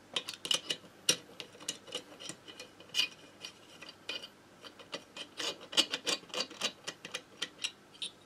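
Hand ratchet clicking in quick, irregular runs of ticks as cylinder-head nuts are spun down.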